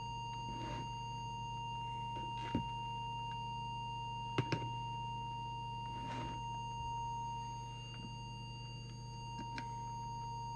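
Steady single-pitch test tone from a small audio oscillator keying an FM CB transmitter while its deviation is being set, over a steady mains hum, with a few faint clicks.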